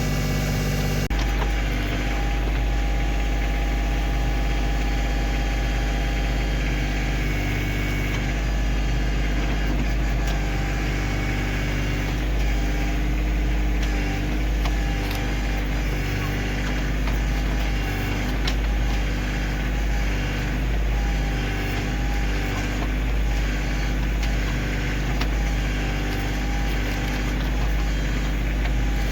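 Kioti CK2610 compact tractor's three-cylinder diesel engine running steadily while working the backhoe, with faint scattered clicks and knocks over the engine.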